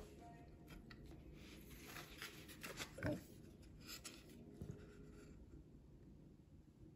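Faint handling sounds at a workbench: light scratching and small clicks, with one louder knock about three seconds in.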